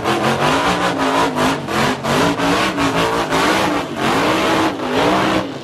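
Car engine revving hard with the rear tyres spinning in a smoking burnout, the revs rising and falling over and over against the rush and squeal of the tyres.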